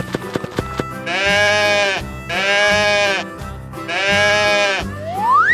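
Sheep bleating three times, each bleat about a second long, over light background music. A rising whistle follows near the end.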